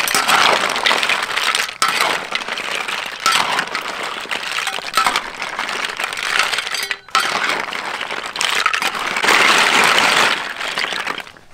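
Whole snails in their shells being stir-fried in a large wok, stirred with a metal spatula: a dense clatter of shells clinking against each other and the pan, mixed with sizzling. It comes in bouts of stirring, with brief pauses about 2, 3 and 7 seconds in.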